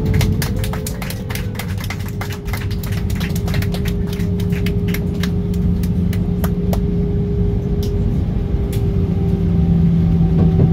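Jet airliner heard from the passenger cabin during the landing rollout on a wet runway: a steady low rumble of wheels and engines, with an engine whine slowly falling in pitch as the plane slows. Many sharp clicks and rattles come through the first seven seconds or so, then ease off.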